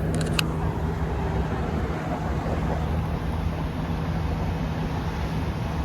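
Steady low mechanical drone of a running vehicle, with a few sharp clicks just after the start.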